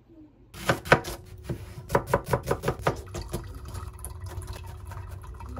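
Kitchen knife chopping on a cutting board: a run of sharp knocks, about three or four a second, then lighter, quicker taps, over a low steady hum.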